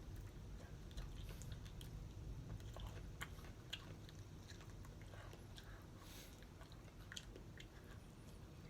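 Faint chewing and biting of a person eating spicy chicken wings, with scattered small mouth clicks and smacks.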